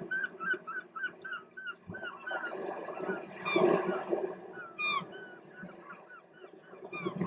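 Bird calls in a quick run of short repeated notes, about four a second, with a sweeping downward call about five seconds in. Under them is a soft rushing noise that swells about three and a half seconds in.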